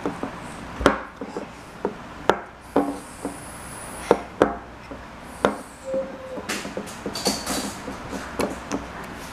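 Rice husk lunchbox knocking and clicking on a wooden tabletop as it is handled and its hand-shaped clip latches are worked: an irregular string of sharp knocks, the strongest in the first six seconds, then softer taps and rubbing.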